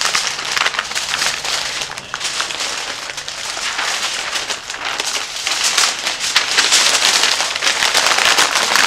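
Aluminium foil and butcher paper crinkling and rustling continuously as they are folded and pressed by hand around racks of ribs, a little louder in the second half.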